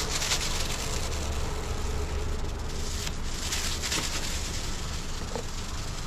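Electric power awning motor on a travel trailer running steadily as the awning rolls out, a constant low hum.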